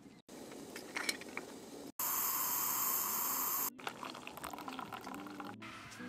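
Several short clips spliced together with abrupt cuts. The loudest, starting about two seconds in, is a steady hiss of liquid lasting under two seconds. Before and after it come stretches of light clicking and crackling.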